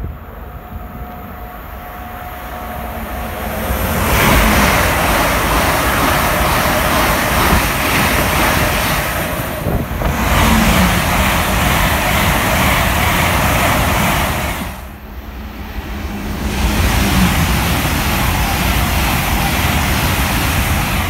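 Great Western Railway passenger trains running through a station at speed. A rushing noise of wheels on rail and moving air swells over the first few seconds, then stays loud and steady as the train passes close. The sound drops away briefly about fifteen seconds in, then comes back loud as carriages rush past.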